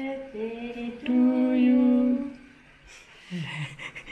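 A voice singing a few long held notes unaccompanied, stepping from note to note, then a short soft chuckle near the end.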